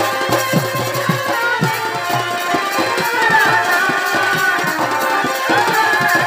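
Chhau dance music: drums beating two to three strokes a second, each stroke dropping in pitch, under a wavering high melody.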